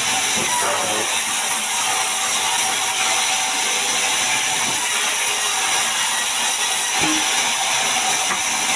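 Sawmill bandsaw running through a large mahogany log, a steady loud hiss without a break.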